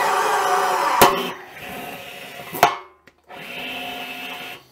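Powered rivet tool setting large-head steel pop rivets: the motor whirs for about a second, then the rivet stem breaks with a sharp snap. This happens twice, and the motor starts a third pull near the end.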